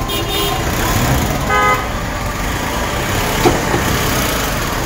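Street traffic noise with two short vehicle horn toots near the start, about a second and a half apart, and a brief knock about three and a half seconds in.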